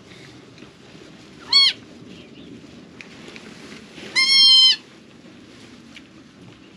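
Newborn goat kid bleating twice: a short high cry about one and a half seconds in, then a longer, steady high bleat a little after four seconds.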